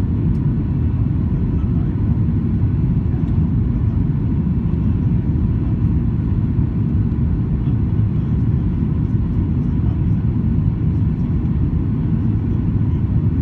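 Steady low rumble of a Boeing 737-800's CFM56 engines and airflow heard inside the passenger cabin during the descent to landing, with a faint steady whine above it.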